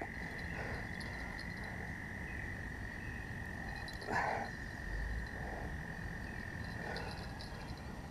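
Frogs calling: one steady high trill with a few short, lower croaks, the loudest about four seconds in.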